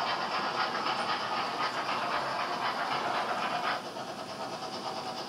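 HO-scale BR 50 model steam locomotive and its tank-car train running past on the layout track: a steady whirring and rattling of the motor and wheels on the rails. It eases off a little about four seconds in.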